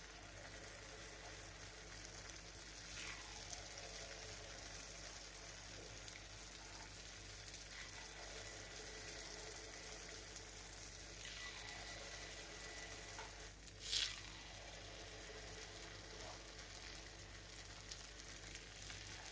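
Faint, steady sizzling of paniyaram batter frying in hot oil and ghee in the wells of a nonstick paniyaram pan as the batter is poured in, with a brief louder hiss about fourteen seconds in.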